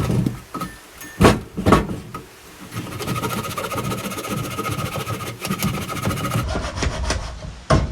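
A motor stops, then two sharp knocks about a second and a half in, then a steady mechanical running sound with a thin whine.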